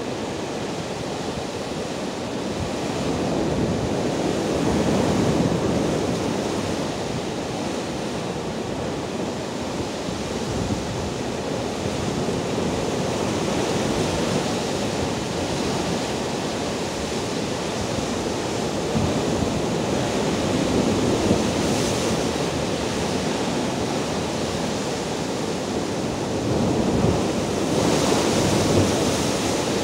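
Rough Black Sea surf breaking over shoreline rocks: a continuous wash of waves that swells louder as bigger waves break, about five seconds in and again near the end.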